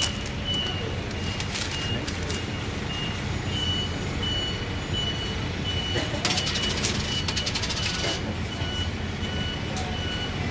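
Steady low rumble with a short, high electronic beep repeating about every two-thirds of a second. From about six to eight seconds in there is a quick run of metallic clicks as metal tongs work red bean wheel cakes on the metal griddle.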